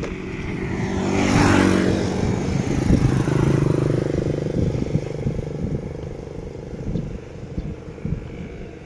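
A motor vehicle passing on the road: its engine and tyre noise grow louder over the first couple of seconds, peak, then fade away.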